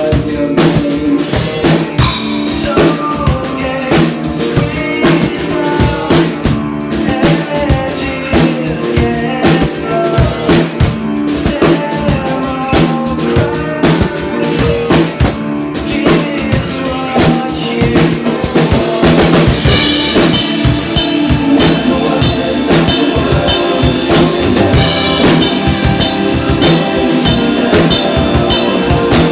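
Music with a drum kit keeping a steady beat, with brighter, higher parts coming in about two-thirds of the way through.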